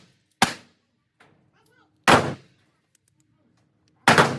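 Three single shots from a Glock pistol, slow aimed fire at about two-second intervals, each a sharp crack with a brief echoing tail.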